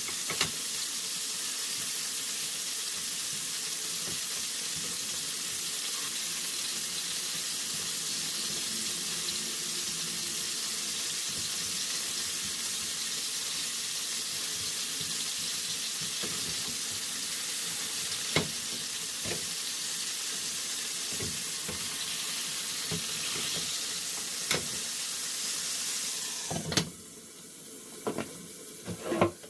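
Chicken wings sizzling as they fry in a pan, a steady hiss with a few sharp clicks now and then. The sizzle drops off suddenly a few seconds before the end.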